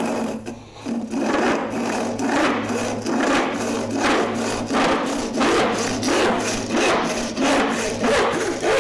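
Crosscut hand saw cutting through an old painted pine board, in a steady, even rhythm of back-and-forth strokes.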